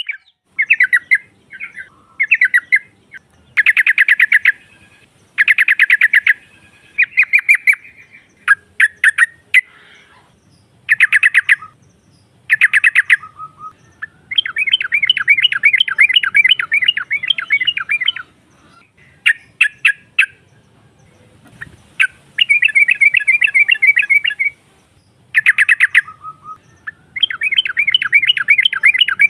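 Yellow-vented bulbul (trucukan) chattering, said to be a female calling to males. The calls come in repeated bursts of fast notes: short ones in the first half, then longer runs of three or four seconds.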